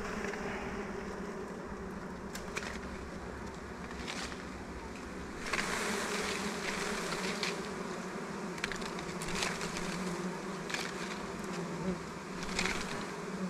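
A swarm of dwarf honey bees (ong ruồi) buzzing steadily around a freshly cut honeycomb, a droning hum that grows louder about five and a half seconds in. Brief rustles and snaps of leaves and twigs come now and then.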